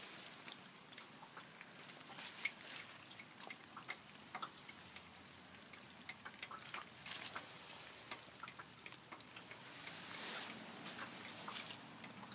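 Light rain: faint, scattered raindrops ticking at irregular intervals, with a brief rush of noise about ten seconds in.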